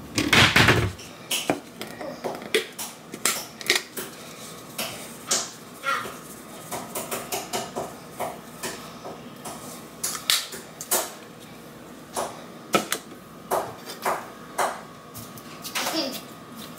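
Kitchen handling sounds: a spice shaker rattled in quick runs of taps over a raw beef roast, with scattered clicks and knocks of containers and a knife handled on the counter and cutting board. A louder clatter comes right at the start.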